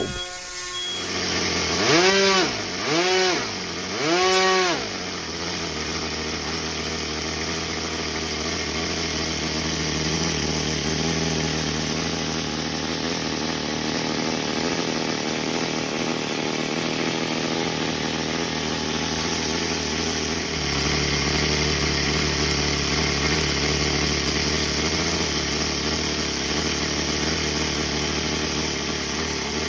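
OS Max NSU Wankel .30-size glow-fuel rotary model engine with propeller, running on a test stand. About two seconds in it revs up and back down three times in quick succession, then runs on at a steady speed, sounding good.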